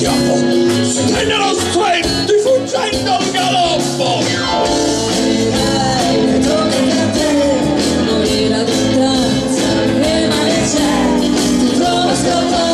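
Live rock band playing: electric guitars, bass and drums under sung vocals.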